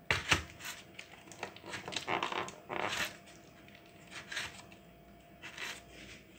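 A plastic colander full of diced apples being gripped and moved: scattered light plastic knocks and rustles, with the apple pieces shifting inside, busiest in the first three seconds.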